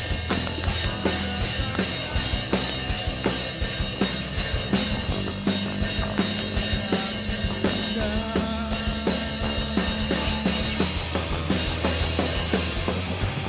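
Live band music in an instrumental passage: a drum kit keeping a steady beat over bass and guitar, with no singing.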